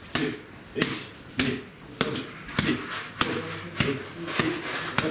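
Boxing gloves striking hand-held focus mitts in a steady series of punches, about ten sharp smacks, nearly two a second.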